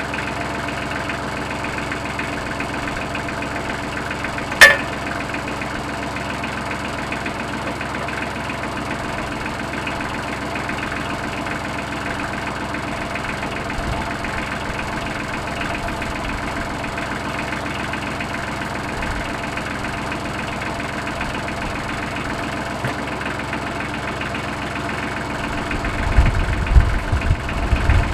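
Tractor engine idling steadily, with one sharp click about five seconds in and low irregular thumps near the end.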